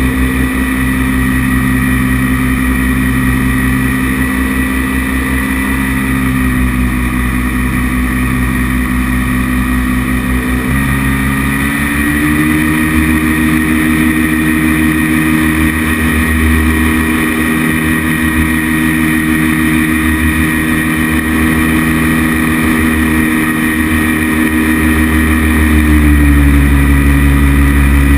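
Paramotor engine and propeller running steadily in flight. The engine note rises about a third of the way in, holds, and falls back near the end.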